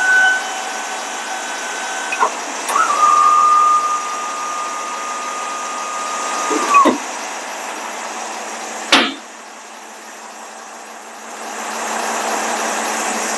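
Autocrane truck crane's electric motor whining steadily as crane functions are run from the remote, in two runs; the second is a little lower and winds down in pitch as it stops about seven seconds in. A sharp click about nine seconds in, then a steady rushing noise builds near the end.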